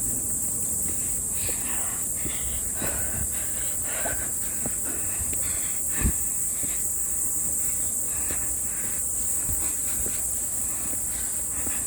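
Steady high-pitched insect chorus, with irregular footsteps and rustling on a mountain trail; a sharper thump about six seconds in.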